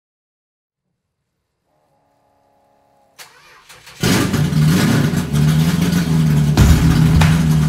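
Car ignition: a faint click as the key turns, then about four seconds in the engine starts with a sudden loud burst and keeps running.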